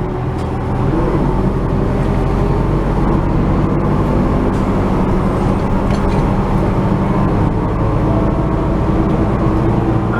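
City bus driving, heard from inside the passenger cabin: a steady low engine drone over road and tyre noise.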